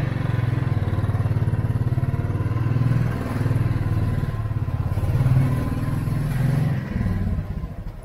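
Royal Enfield Thunderbird 350's single-cylinder engine, the older non-J-series unit, pulling away from a standstill and riding off, its exhaust beating in quick even pulses. It gets quieter about seven seconds in.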